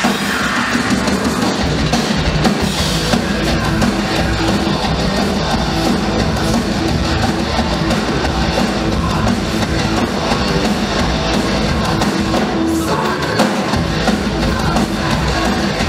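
Live electronic drum and bass played loud by a band: acoustic drum kit and electric guitar over electronic backing from the decks, with a held low synth-like note through the middle.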